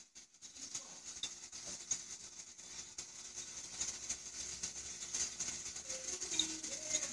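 Glass jar thumper on a moonshine still bubbling as steam is driven through the copper pipe into the water: a steady fizzing hiss full of tiny pops, with a few short low gurgles near the end.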